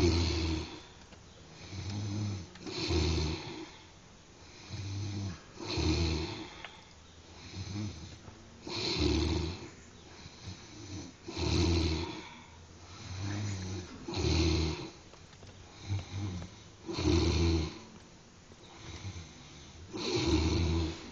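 A sleeper snoring steadily, with a loud, low, rattling snore about every three seconds, eight in all, each preceded by a softer snore.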